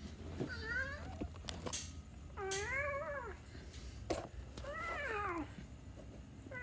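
A domestic cat meowing three times, each meow rising then falling in pitch, about two seconds apart.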